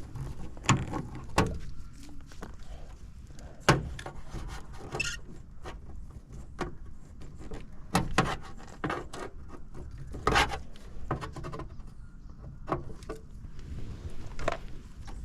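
Irregular knocks, clicks and rubbing from tools and parts being handled, with a few louder knocks spread through.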